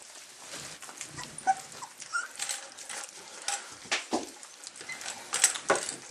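A litter of newborn puppies squeaking and whimpering in short high cries, with scattered rustling and clicks as they are handled.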